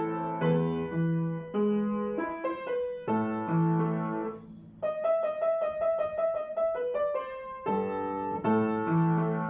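Solo piano music playing slow chords. About four and a half seconds in it briefly drops away, then a quick run of repeated higher notes follows before the chords return.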